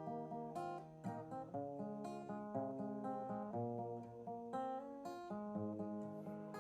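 Background music: acoustic guitar picked and strummed in a steady rhythm, with chords changing every second or so.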